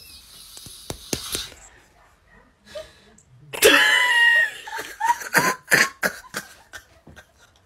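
Human vocal sounds: a brief high-pitched cry about three and a half seconds in, then a string of short, sharp vocal bursts.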